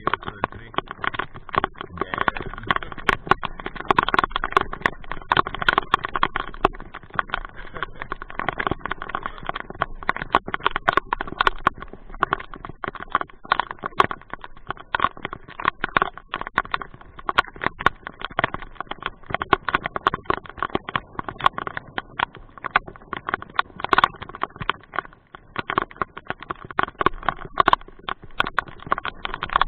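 Rain pattering: a dense, irregular run of raindrop taps striking close to the microphone.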